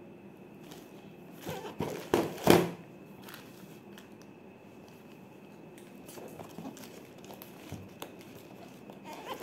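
Plastic packaging and a cardboard box being handled: crinkling and rustling, loudest in a short cluster of crackles about two seconds in, with a few lighter rustles later.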